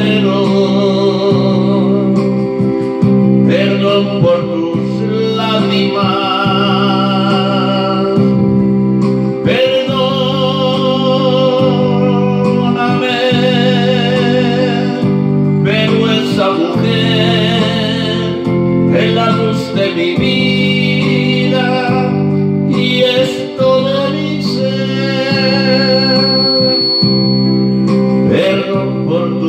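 A man singing a slow romantic Spanish-language ballad into a microphone over his own electronic keyboard accompaniment, the melody held in long phrases with vibrato over a steady backing.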